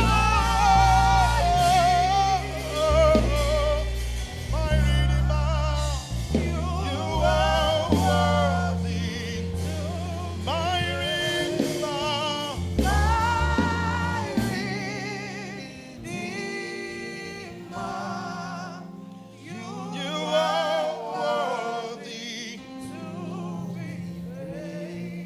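Live gospel worship music: a lead singer sings long, wavering phrases over a band with bass and keyboard. About two-thirds of the way through the bass drops out, and the music softens.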